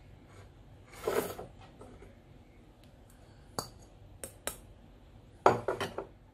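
Bowls being handled on a hard tabletop: a brief scrape about a second in, a few light clinks, then a quick clatter of knocks near the end as a ceramic bowl is set down.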